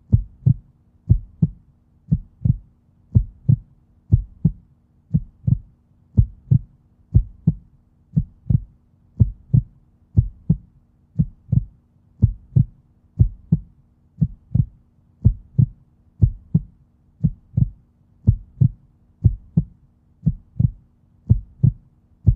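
Heartbeat sound effect: a steady lub-dub rhythm of low double thumps, about one and a half beats a second, over a faint steady hum.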